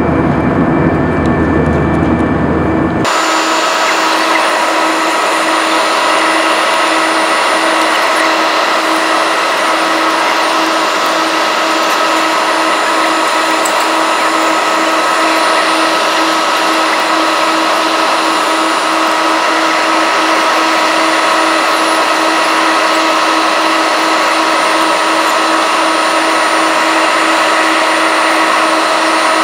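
Airbus A320 cabin noise in cruise flight: a loud, steady rush of air and engine noise with several steady whining tones from the jet engine. About three seconds in, the sound changes abruptly from a deeper rumble to a brighter, hissier rush.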